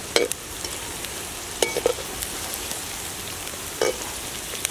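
Vegetables sizzling in hot oil in a steel wok, with a steady hiss, as a perforated metal spatula stirs them, clinking and scraping against the pan a few times: once right at the start, a quick cluster of knocks just before the two-second mark, and once more near the end.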